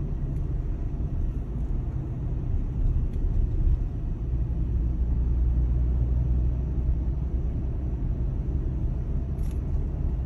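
Steady low rumble of a car driving at street speed, heard from inside the cabin: engine and tyre noise.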